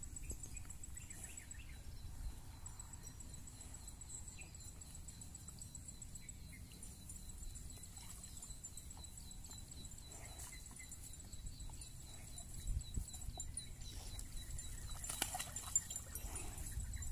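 Rural field ambience: insects chirping in a steady, evenly repeated high-pitched pulse over a faint low rumble.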